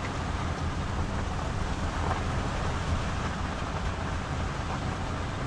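Car driving on a gravel road, with steady engine and tyre noise and wind across the microphone.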